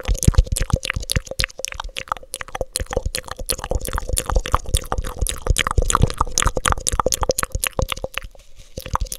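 Wet mouth sounds, rapid tongue clicks and lip smacks, made into a black cone cupped over the microphone, which gives them a slight echo. The clicks come thick and fast, several a second, thinning briefly a little after eight seconds.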